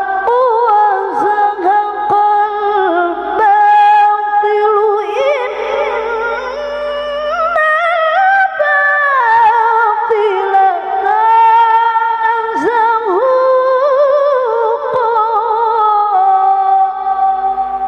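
A woman reciting the Qur'an in the melodic tilawah style through a microphone, holding long ornamented notes that waver and trill. The line climbs to its highest pitch about halfway through, comes back down, and ends just before the close.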